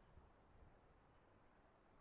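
Near silence: faint room tone with a low hiss and rumble.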